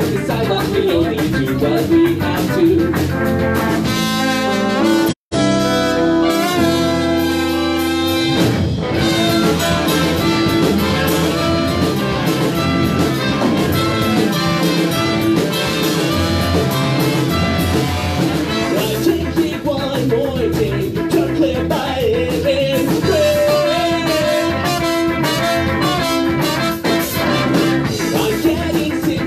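Live band playing: electric guitar, bass guitar and a horn section with trumpet. The audio cuts out for a split second about five seconds in.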